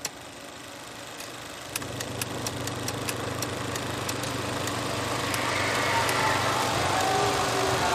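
A steady low engine hum that fades in and grows louder, with scattered sharp clicks through the first half.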